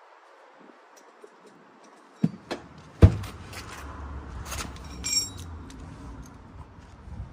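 Sharp metallic knocks and clanks as a jack is handled and set in place under the vehicle, the loudest knock about three seconds in, followed by rattling and a brief metallic ring.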